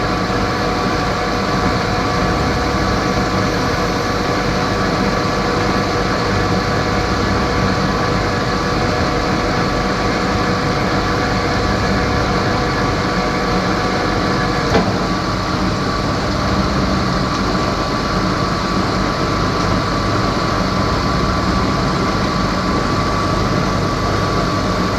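Metal lathe running steadily, a constant motor whine over a machine hum. About fifteen seconds in there is a click and part of the whine drops out while the machine keeps running.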